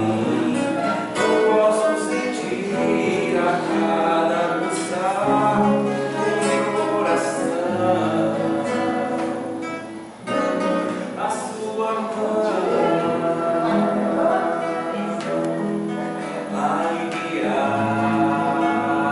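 A song sung to a strummed and plucked acoustic guitar, with a brief pause about ten seconds in.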